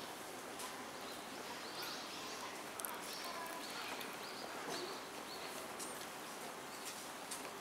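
Train-platform ambience: a steady low murmur of waiting commuters, with small birds chirping in short repeated calls now and then.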